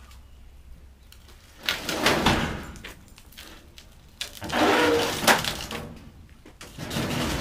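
Scrap being handled and loaded into a trailer: three rough bursts of clattering and scraping, the middle one longest, with a brief metallic ring in it.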